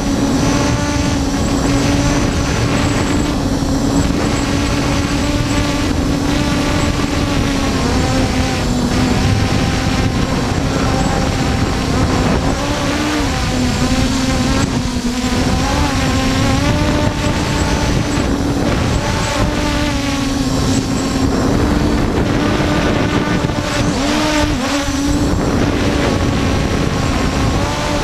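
Force1 F100 quadcopter's motors and propellers whining steadily, the pitch wavering slightly as the motors adjust speed, with wind rumbling on the microphone.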